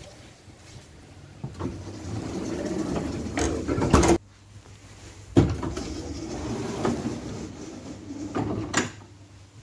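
Electric passenger doors of a KVB K4000 light-rail tram closing, with the mechanism running for a couple of seconds and shutting with a knock about four seconds in. About a second later they open again with a sudden start and run until a final knock near the end, over the tram's steady low hum.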